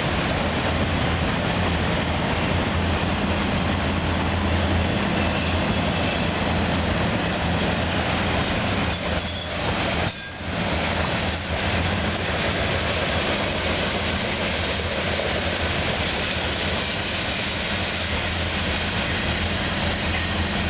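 CN freight train's cars, autoracks and covered hoppers, rolling past on the rails with a steady rumble and wheel noise, with a brief dip in level about halfway through.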